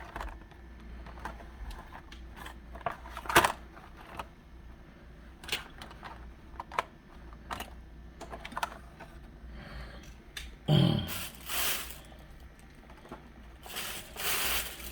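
Scattered light clicks and taps of small die-cast toy cars and their plastic packaging being picked up, moved and set down on a table, with one sharper knock a little over three seconds in. About eleven seconds in there is a brief low hum from the person, and there are a few louder rustles near the end.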